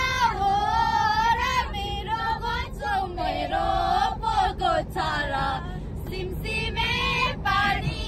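Several young women singing a song together, high-pitched voices in wavering held phrases, over the low steady rumble of the moving car.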